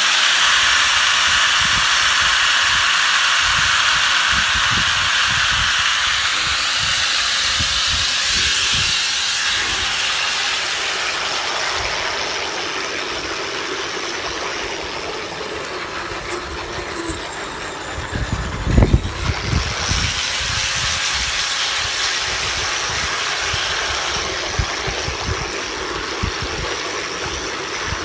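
DYK 4-inch 750 W angle grinder running steadily at speed while held submerged in a bucket of water, its high whine mixed with the churning of the water. About nineteen seconds in there are a few loud, low knocks.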